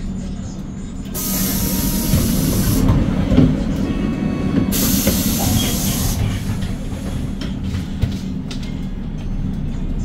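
The CNG engine (C6GB G240) of a 2021 Hyundai Green City city bus runs with a steady low rumble. Two loud bursts of compressed-air hiss from the bus's pneumatic system come about a second in and again about five seconds in, each lasting one to two seconds.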